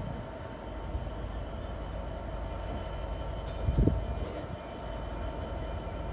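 Class 66 diesel locomotive's EMD two-stroke V12 running with a steady low rumble and hum as it slowly hauls a train of hopper wagons. There is a low thump and a short high hiss a little past halfway.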